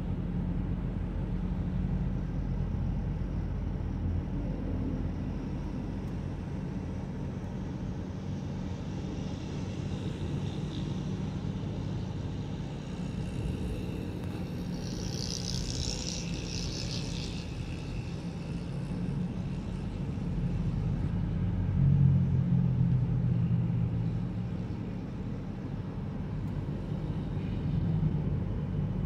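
Road traffic heard from a moving vehicle: a steady rumble of engine and tyre noise. There is a brief high hiss about halfway through, and a louder low engine swell about two-thirds of the way in.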